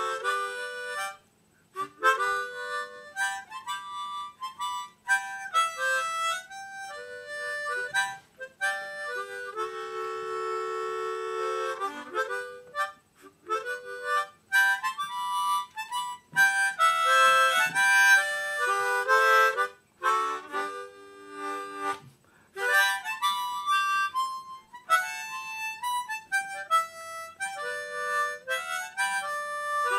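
Small diatonic harmonicas, six mounted together in a corn-cob holder, playing a simple tune of quick single notes and chords. There is one long held chord about ten seconds in and a few short breaks for breath.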